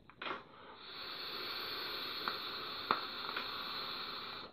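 A long draw on an Augvape Merlin RTA rebuildable atomizer fired at 45 watts on a 0.53 ohm coil: a steady airy hiss of air pulled through the airflow and over the firing coil, with a few faint crackles. The hiss cuts off suddenly as the draw ends.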